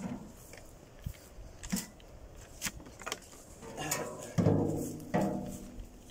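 Plastic crates knocking as they are unloaded from a metal wheelbarrow: a few light knocks, then two loud clangs about four and five seconds in, the wheelbarrow's tub ringing and fading after each.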